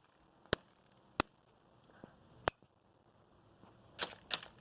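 Sharp hard impacts of an old Samsung flip phone being struck to smash it, each hit with a brief high ring. Three single hits come about a second apart, then a quick flurry of several near the end.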